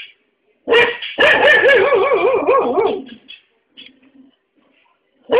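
A pet dog vocalising: a short bark, then a long cry of about two seconds that wavers up and down in pitch, and another bark right at the end.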